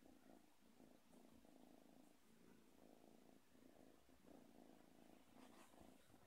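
Faint, steady purring of a white kitten, rising and falling in even cycles.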